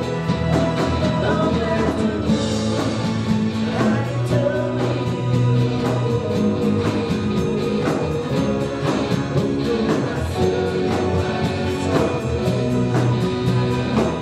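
Live band music: electric guitar and keyboard over a steady beat, with singing.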